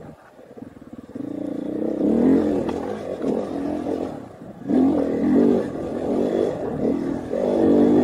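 KTM 500 EXC enduro bike's single-cylinder four-stroke engine on the throttle over a trail, its pitch rising and falling as it is revved. It is nearly shut off at first and opens up about a second in. It drops off briefly about four seconds in, then pulls hard again.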